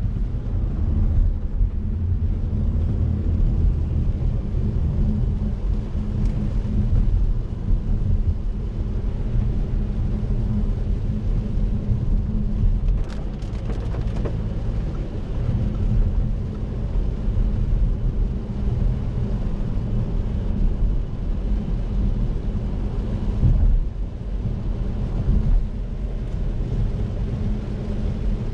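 The V6 diesel of an Audi A7 3.0 TDI, heard from inside the cabin while driving on a wet road: a steady low rumble of engine and tyres. A few faint clicks come about halfway through.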